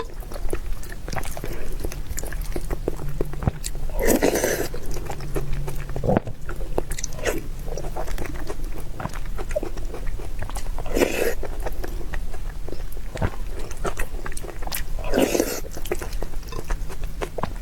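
Close-miked eating: chewing and biting with a constant patter of small wet mouth clicks. A few louder bursts come about four to seven seconds apart.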